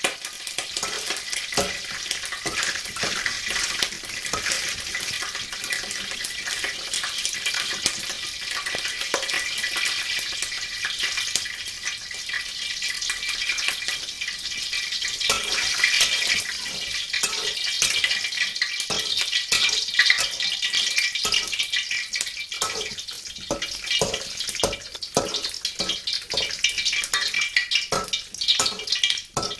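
Raw peanuts frying in oil in a wok, a steady sizzle with constant crackling. A spatula clicks and scrapes against the pan as the peanuts are stirred, more often in the second half.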